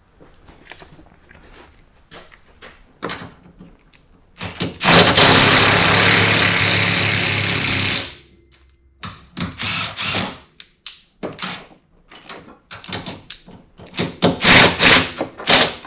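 Milwaukee M18 cordless impact driver running bolts into threaded holes, one long run of about three seconds that fades slightly before it stops. Shorter bursts and knocks follow near the end.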